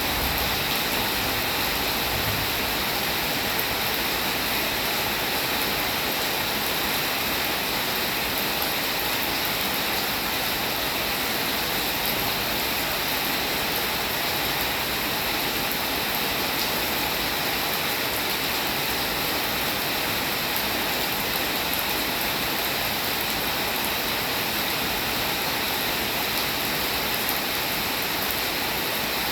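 Steady, unbroken rain falling.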